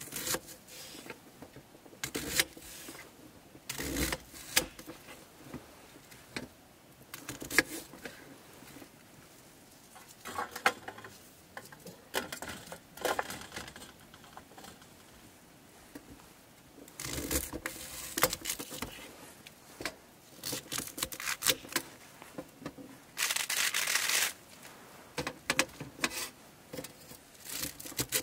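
Close-up handling noises: scattered small knocks and clicks with crinkling and rustling, and two longer rustles near the middle and toward the end.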